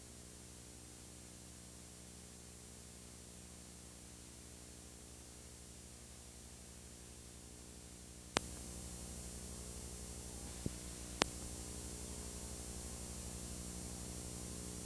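Steady hiss and electrical hum from a VHS tape's blank lead-in during playback. A sharp click about eight seconds in makes the noise step up a little louder, and two smaller clicks follow a few seconds later.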